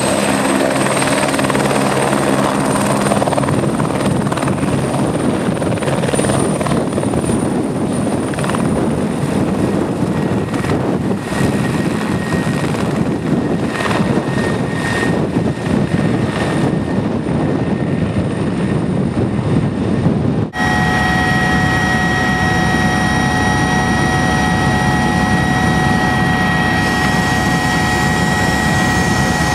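Helicopter turbine engine and rotor running loud, heard from the helipad as it lifts off and hovers. After a sudden cut about two-thirds through, it is heard from inside the cabin in flight: steady rotor noise with a constant high whine.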